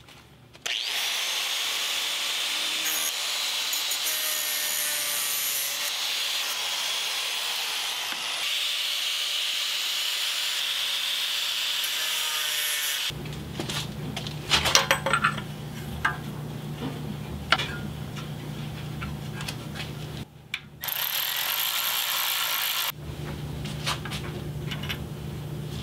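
Angle grinder with a cut-off wheel running and cutting through the steel bracket on an oil pickup tube, a steady high whine for the first dozen seconds. Then metal parts clank together over a low steady hum, with another short loud burst of high-pitched noise near the end.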